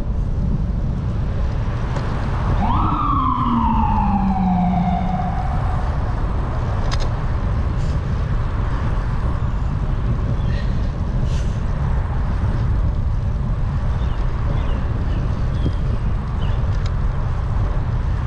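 Steady wind rumble on the microphone throughout. About three seconds in, a siren gives a single wail that sweeps up quickly and then slides down over about three seconds.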